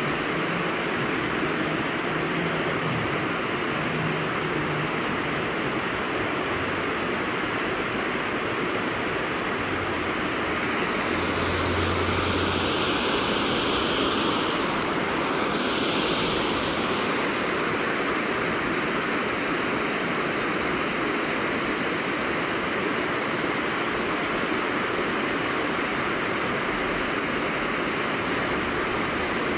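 Water pouring over a low concrete weir into a river pool: a steady rush that swells a little in the middle.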